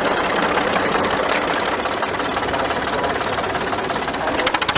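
Early Caterpillar crawler tractor's engine running as the tractor drives slowly past, a steady, rapid mechanical beat.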